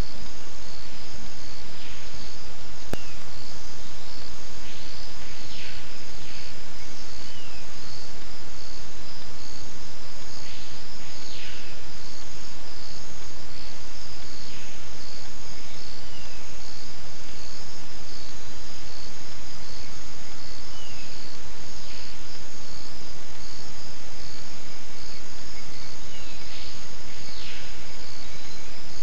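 Steady chorus of insects, a rapid high pulsing with a thin high drone above it, over a constant hiss. Short falling calls cut through it now and then, and there is a single sharp click about three seconds in.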